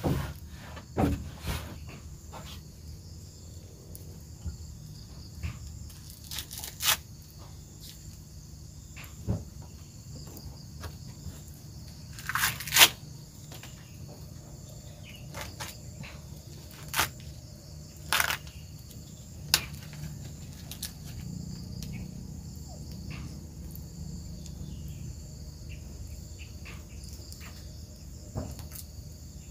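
Steady high-pitched insect chorus, with scattered sharp cracks and crunches, the loudest a pair about twelve seconds in.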